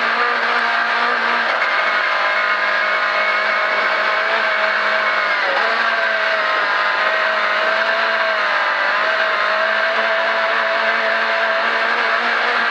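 Rally car engine running hard at steady high revs in fourth gear, heard from inside the cockpit over tyre and road noise on snow, easing briefly about halfway through.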